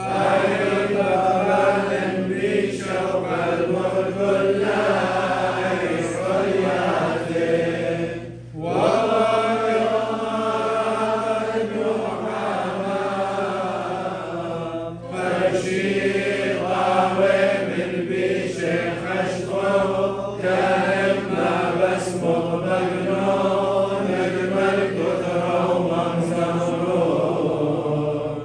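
Liturgical chant sung in long, flowing phrases, with short pauses about eight seconds in and again about halfway through.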